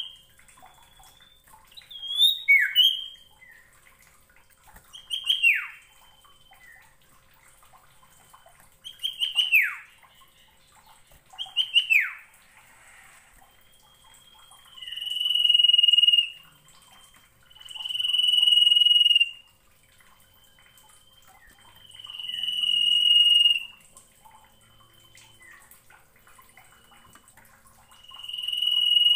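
Common iora (sirtu, cipoh) singing: first a run of short calls that sweep down in pitch, one every two to three seconds, then long, steady high whistles, each held for a second or two.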